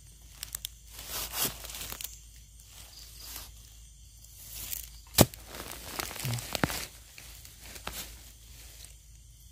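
Irregular crackling and rustling of dry forest leaves and twigs being trodden or handled, with a sharp snap about five seconds in.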